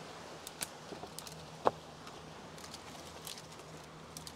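A few light knocks and taps of a weathered plywood board being shifted and set down on driftwood planks, the sharpest knock a little under two seconds in.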